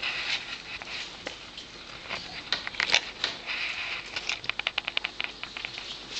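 Newborn puppies suckling at their mother: a run of quick wet smacking clicks, coming fastest, about eight a second, a little past the middle.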